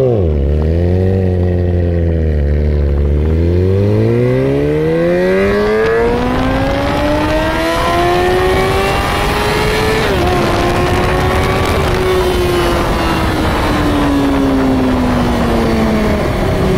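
Yamaha R6's inline-four engine blipped once, then accelerating hard, its pitch rising steadily for several seconds with a quick break partway through, then falling as the bike eases off near the end. Wind rushes past the onboard microphone throughout the run.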